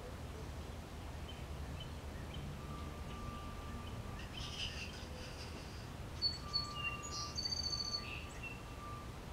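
Outdoor ambience: small birds chirping and whistling now and then over a steady low rumble, with a cluster of sharper chirps about six to eight seconds in.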